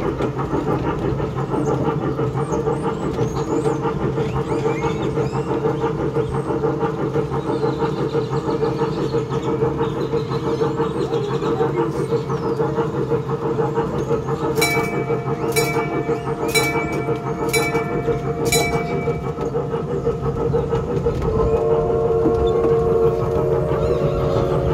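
Zoo miniature train running steadily, with a continuous engine hum. About midway a bell rings five times, roughly a second apart.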